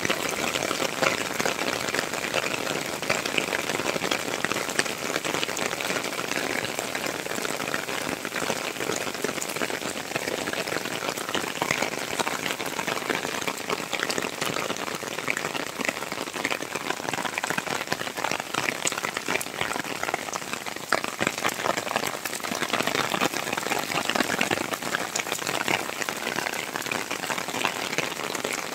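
Heavy rain falling steadily on wet paving, a dense even hiss of countless drops splashing on the ground.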